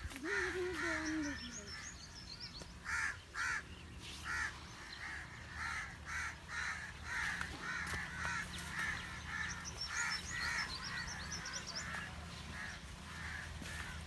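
Birds calling in a run of short harsh calls, two or three a second, with thin high twittering about a second in and again around ten seconds.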